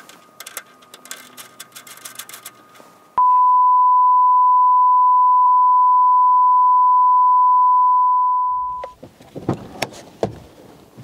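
A loud, steady electronic bleep, one unchanging tone like a test tone. It comes in suddenly about three seconds in, lasts about five and a half seconds and fades out. Faint clicks and rustling of hand work come before it, and a few knocks follow.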